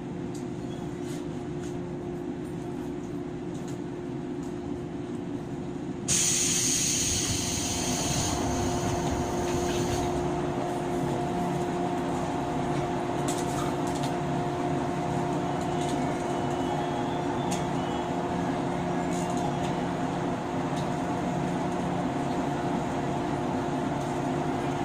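Running sound inside a JR 103-series electric train motor car: a steady hum over a low rumble. About six seconds in it suddenly gets louder, with a hiss that fades over the next few seconds.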